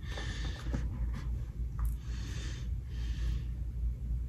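Breathing close to the microphone, a few soft hissing breaths a second or more apart, with rustling and light clicks from the phone box and its cord being handled.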